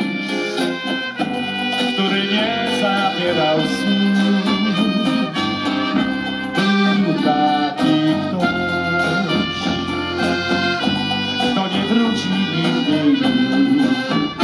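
Live folk band playing an instrumental passage: accordion carrying the tune, with trumpet, banjo, guitar and bass drum.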